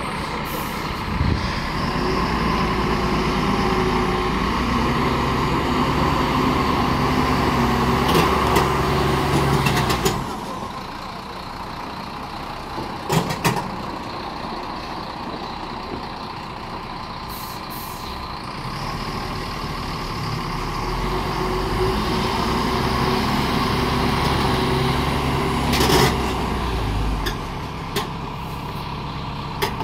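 BharatBenz 2523 6x4 tipper truck's diesel engine pulling hard under a full load of stone aggregate as the truck turns on a loose quarry track. The engine note rises twice, first for about the opening ten seconds and again later on, and eases off in between. A few short sharp sounds come through along the way.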